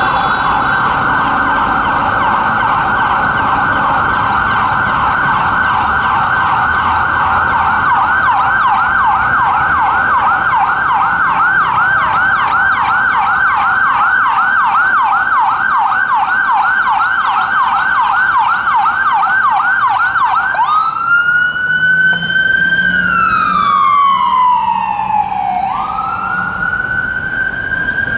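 Ambulance's Whelen Epsilon electronic siren sounding a rapid yelp for most of the time, then switching to a slow wail about three-quarters of the way through: a long rise, a long fall and a rise again. Faint traffic noise lies underneath.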